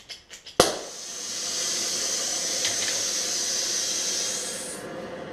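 Gas torch being lit: a few light clicks, then a sharp pop as the gas catches, followed by a steady high hissing of the flame. About a second before the end the hiss drops to a lower, quieter hiss.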